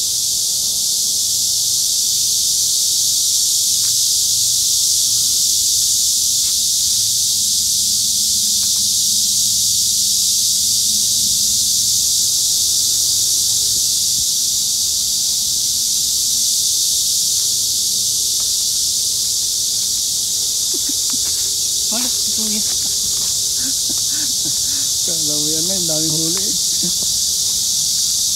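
Loud, steady, high-pitched insect chorus drones without a break from the surrounding trees and grass.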